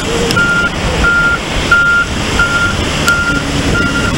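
Articulated dump truck's reversing alarm beeping steadily, a single high tone about three times every two seconds, over the steady low rush of surf and engine noise.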